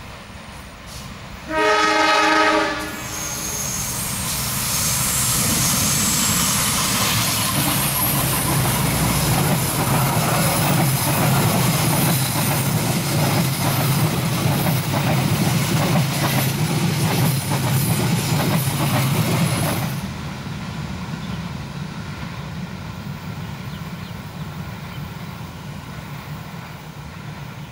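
Diesel locomotive horn sounds one blast, about a second long, early on. Then the locomotive and its passenger coaches pass close by, a loud rumble with the clickety-clack of wheels over the rails. About twenty seconds in the sound drops suddenly to a quieter rumble of a train farther off.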